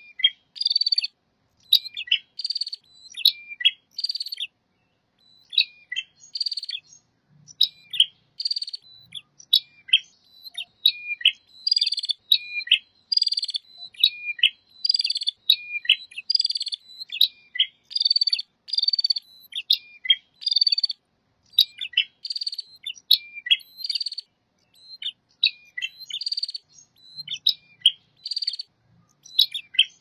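Prinias (prenjak), male and female, calling in a noisy back-and-forth: a fast, continuous run of short, high, sharp chirps about once or twice a second, many followed by a lower downward note, with crisp clicks among them. It is a lure recording meant to draw prinias in to answer.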